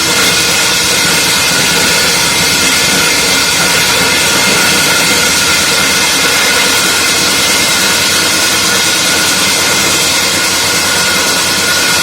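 Core drill running steadily under load, boring through a retaining wall: a constant loud machine noise with a steady high whine.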